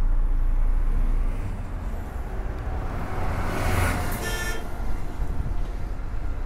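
Steady low engine and road rumble from inside a moving vehicle, with a swell of passing-traffic noise about three and a half seconds in, followed by a short electronic beep.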